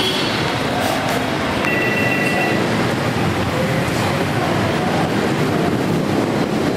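Steady din of busy street traffic, with a brief high tone lasting about a second, about two seconds in.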